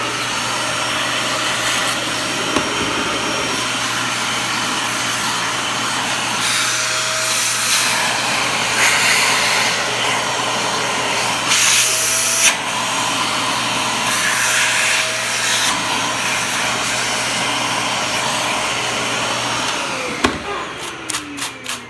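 Dyson vacuum cleaner running steadily, its airflow hiss surging briefly several times as it sucks up the dog hair combed out of a Roomba brush. About 20 seconds in it is switched off and the motor winds down with a falling whine.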